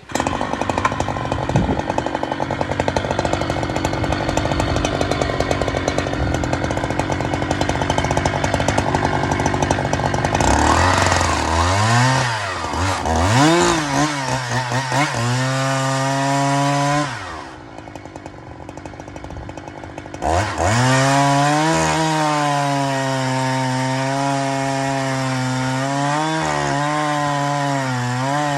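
Husqvarna 365 SP 65 cc two-stroke chainsaw running hard with a dense, rough sound for about ten seconds, then revving up and down. Around seventeen seconds in it drops to idle for about three seconds, then revs back up to a high, fairly steady speed with small dips.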